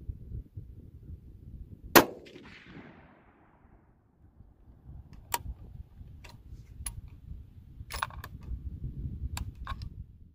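A single rifle shot from a Bergara B-14 HMR in 6.5 Creedmoor about two seconds in, its crack trailing off in a fading echo, followed later by a few light clicks. Wind rumbles on the microphone.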